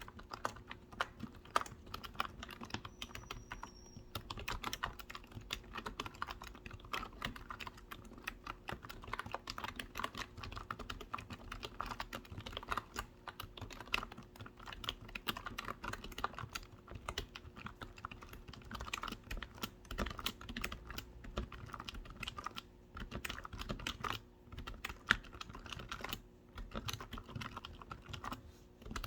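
Fast, continuous typing on a computer keyboard, many key clicks a second with a few short pauses.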